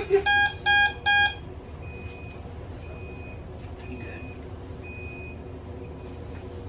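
Hospital medical equipment alarm: three quick, loud multi-tone beeps, then a fainter single high beep repeating about once a second.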